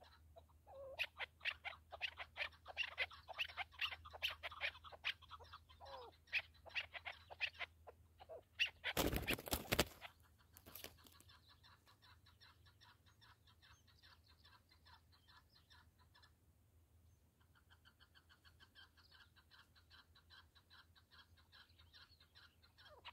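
Chukar partridges calling in quick runs of clucking "chuk" notes. A loud rushing noise comes about nine seconds in, then quieter rapid, even chattering.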